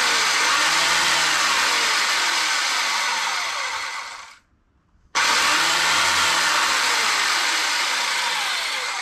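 Porter-Cable 7¼-inch circular saw driving a Hercules beam cutter chain bar, run free in the air without cutting. It runs steadily at speed, winds down to a brief silence about four seconds in, then starts again abruptly and runs on until near the end.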